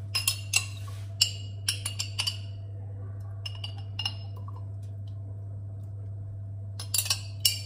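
A metal spoon clinking and clattering against glass as green olives are scooped from a glass jar and dropped into a glass baking dish. The clinks come in short clusters, with a pause a little past the middle and another cluster near the end, over a steady low electrical hum.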